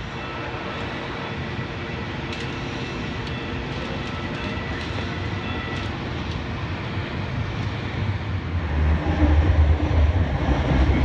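Light rail train heard from inside the car: steady running noise with a faint high tone and a few light clicks, then a louder low rumble building up near the end.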